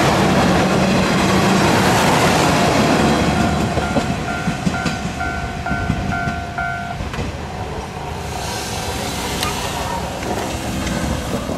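Kanto Railway KiHa 350 diesel railcars pulling away, the engine and wheel-on-rail rumble fading gradually. For a few seconds in the middle a repeating electronic beep sounds about every two-thirds of a second.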